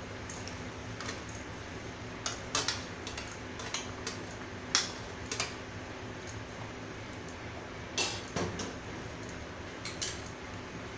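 Sharp, irregular clicks and knocks of a wooden spatula and a steel serving tray against a pan as boiled mutton is tipped into green masala and stirred, the loudest about five and eight seconds in. Under them runs a steady low hum from the induction cooker.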